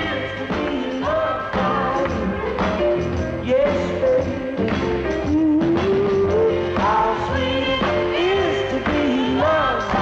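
A mid-1960s Motown soul number: a singer's melodic, gliding vocal line over a full band with a steady beat.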